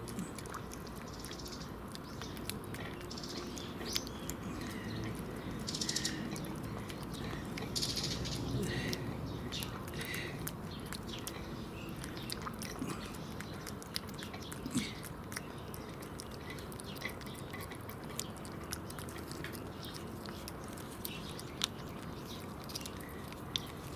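Animals chewing tuna, with many small wet clicks and smacks. A few short hissy puffs come about 6 and 8 seconds in.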